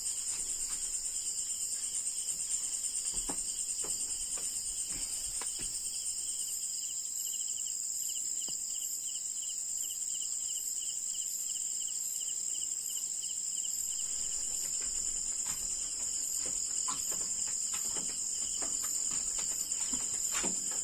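Night-time chorus of crickets and other insects, a steady high-pitched trill throughout, with a second, pulsing insect call joining in the middle. A few faint knocks and scrapes sound now and then.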